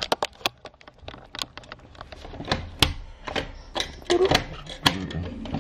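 An irregular run of sharp clicks and knocks, many in quick succession, like small hard objects being handled.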